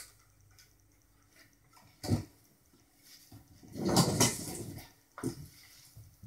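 A sharp click, then a few short scuffs and rustles of hands and body moving at a workbench, the loudest about four seconds in.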